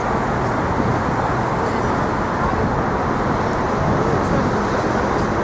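Steady city street traffic noise, an even hum of passing vehicles, with faint distant voices near the end.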